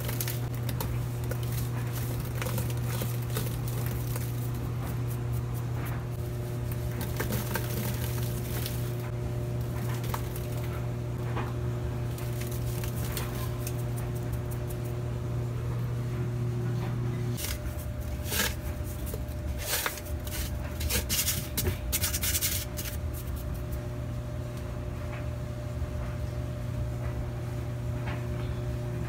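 Top-loading washing machine filling: water sprays and runs down the inside of the stainless drum over a steady machine hum, which changes a little over halfway through. A few seconds of scattered crackles and splashes follow the change.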